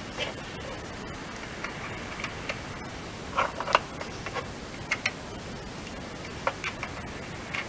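Irregular light clicks and taps from hands working inside a car's front wheel arch over a steady hiss, some clicks coming in quick pairs.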